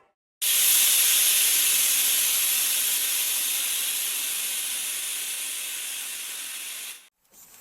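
Steam venting in one long hiss that starts abruptly, slowly fades over about six and a half seconds and cuts off shortly before the end.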